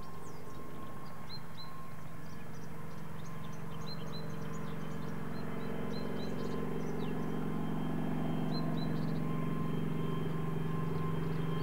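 Kamov Ka-26 helicopter with its two nine-cylinder radial engines, a steady drone growing slowly louder as it comes closer. Songbirds chirp repeatedly over it.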